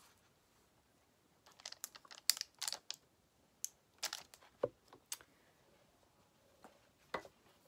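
Paper and small crafting tools being handled on a work table: a series of short clicks and rustles, bunched about a second and a half in, then a few more spaced out.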